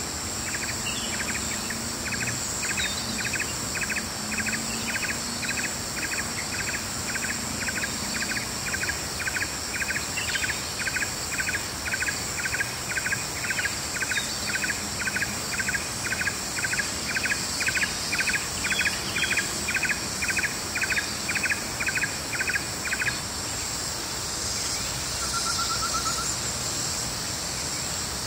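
Outdoor morning nature ambience: a steady high insect chorus runs throughout. Over it, an animal call repeats about twice a second, evenly spaced, and stops a few seconds before the end.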